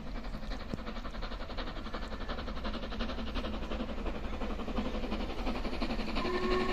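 Stanier Black Five steam locomotive approaching with its train, the running sound building steadily louder; its whistle starts to blow near the end.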